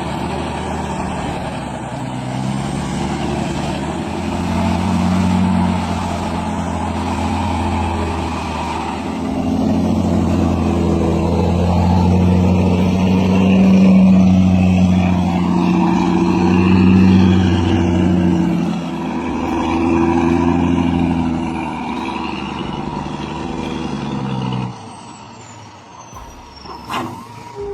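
Heavy truck engine running under load, its note rising and falling repeatedly, then dropping away abruptly near the end.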